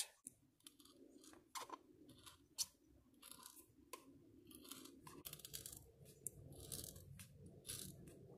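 Faint handling noise of a rubber CV boot being flexed and pushed over a gear lever and its metal housing: soft rubbing and rustling with a few scattered clicks, the sharpest about two and a half seconds in.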